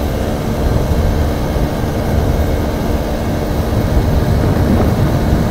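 Motorcycle riding at a steady cruising speed: wind rushing over the microphone, with the engine's steady hum underneath.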